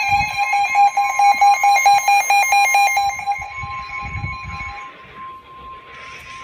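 NOAA Weather Radio Emergency Alert System tones. Rapidly switching digital data tones of the alert header sit over a steady warning tone near 1 kHz. The data tones fade out about 4 to 5 seconds in and the steady warning tone carries on more quietly. Together they signal an incoming severe weather warning.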